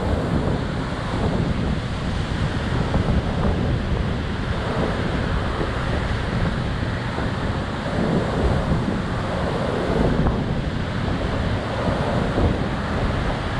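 Wind rushing over the microphone: a steady, loud rushing noise, strongest in the low end, with no distinct events.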